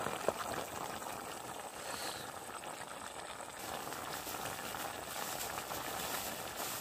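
Pot of jungle fowl pieces and tomato cooking over a wood fire, a steady sizzling, bubbling hiss with small crackles throughout.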